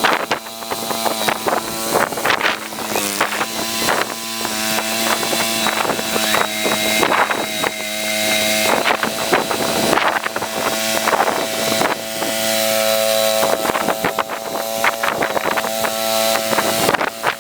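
Engine of a small snow-clearing machine running steadily at a constant speed, with frequent sharp knocks and clatter from the machine as it works.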